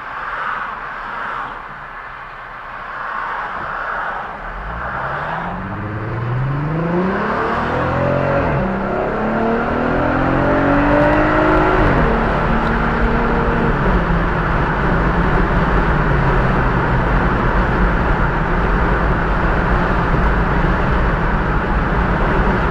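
Volkswagen Passat VR6 engine with a Borla exhaust under hard acceleration. After a few seconds of road noise, the engine note climbs steeply, drops at an upshift, climbs again, drops at a second shift, then settles into a steady drone at cruising speed.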